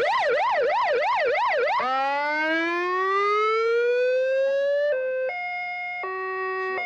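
Electronic police siren cycling through its tones: a fast warble of about three swoops a second, then one slow rising wail, then a two-tone sound stepping between held high and low notes.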